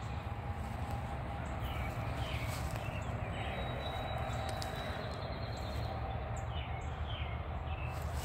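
Outdoor ambience: short bird chirps come every second or so over a steady low rumble, with a few faint clicks.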